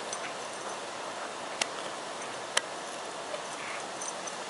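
Steady outdoor background hiss with faint high chirps. Two sharp clicks come about a second apart, around the middle.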